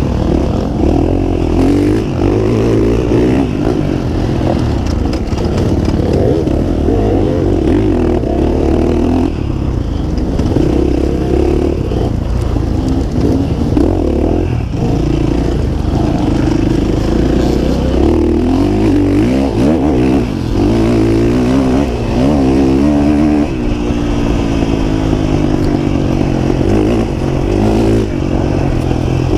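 Dirt bike engine running hard, heard close up from the bike itself, its revs rising and falling continually with the throttle, with a long steady climb in pitch about three quarters of the way through.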